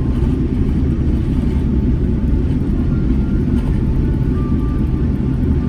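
Cabin noise of a Boeing 787-10 taxiing: a steady low rumble from the engines at taxi power, with faint thin tones above it.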